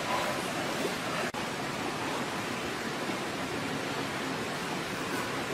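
A steady, even hiss of outdoor background noise with no distinct events, briefly cutting out a little over a second in.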